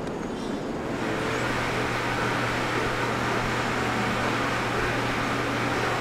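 Milking parlour equipment running: a steady mechanical hum and hiss that sets in about a second in.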